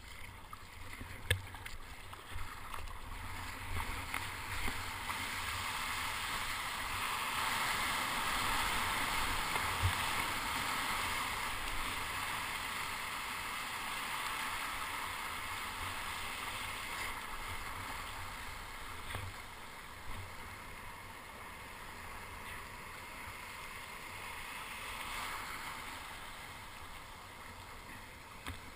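Surf and whitewater rushing around a sit-on-top kayak as it rides broken waves, with a few sharp splashes. The rush swells from about five seconds in and eases after about fifteen seconds.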